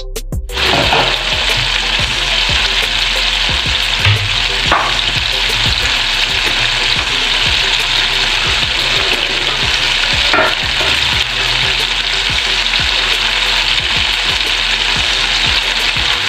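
Flour-battered chicken pieces deep-frying in hot oil in a metal pan: a steady, loud sizzling and bubbling that starts about half a second in, with a few brief louder crackles.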